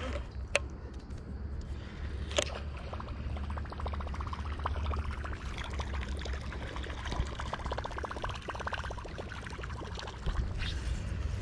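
Whopper Plopper topwater lure retrieved across calm water, its spinning tail churning the surface in a rapid run of small plops and gurgles while a baitcasting reel is cranked. Two sharp clicks come in the first few seconds.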